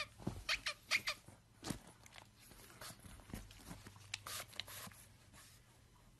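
A pug pawing at a tablet's glass screen, making irregular short taps and scratches that are loudest in the first two seconds.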